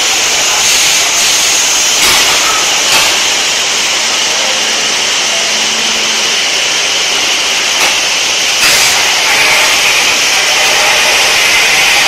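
BOPP film coating machine and its drying oven running: a loud, steady, hiss-like machine noise, with a few brief knocks.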